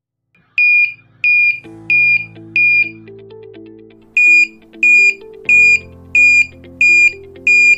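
A motorcycle sound flasher beeping in time with the turn signal's flashing, about three short, shrill beeps every two seconds: four beeps, a pause of about a second, then six more. Background music plays underneath.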